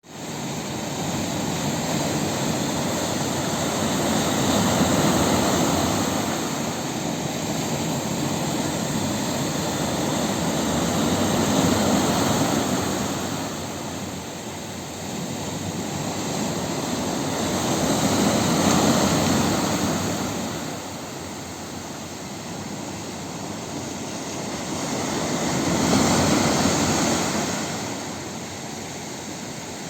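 Rough sea: heavy surf crashing and rushing in a steady roar that swells and ebbs about every seven seconds as each wave breaks.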